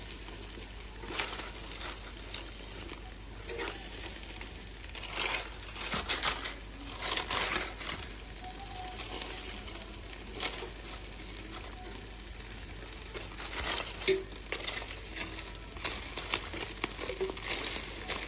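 Irregular crackling and rustling, with scattered sharper clicks and a steady low hum underneath.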